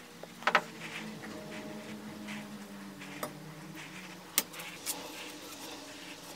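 Electric bench grinder running with a buffing wheel, humming steadily while a cast aluminium hatchet handle is pressed against it for polishing. A few sharp knocks cut through, the loudest about half a second in and another past the middle.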